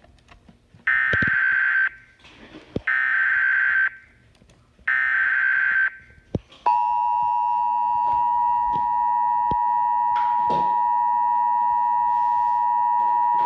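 Emergency Alert System broadcast tones: three bursts of the SAME digital data header, each about a second long with a second's gap between, carrying the code for a flash flood warning. Then, about halfway through, the steady two-tone EAS attention signal starts and holds.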